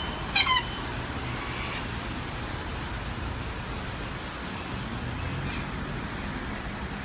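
A parrot gives one short, loud squawk about half a second in, over a steady low rumble of background traffic.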